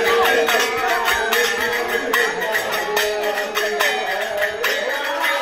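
Music with a steady percussion beat and a melody over it.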